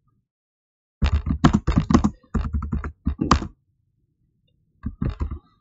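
Typing on a computer keyboard: a quick run of keystrokes lasting about two and a half seconds, then a pause, then a few more keystrokes near the end.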